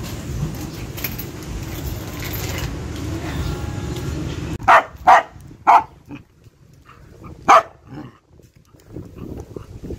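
A dog barking four times. Three barks come in quick succession a little before halfway, and one more follows about two seconds later. Before the barks there is a steady low rumbling noise.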